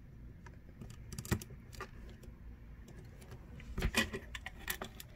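Plastic Lego pieces clicking as they are handled and pressed together: scattered small clicks, with a cluster of them about four seconds in.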